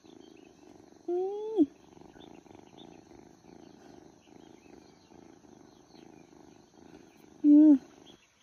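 Young orange tabby kitten purring steadily while held in a lap, the purr stopping just before the end. Two short louder tones sound over it, one about a second in and a falling one near the end.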